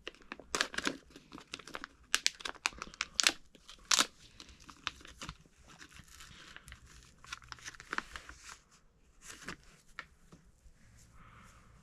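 Plastic wrapper of a pack of football trading cards being torn open and crinkled: a run of sharp crackles, thickest in the first four seconds, then sparser.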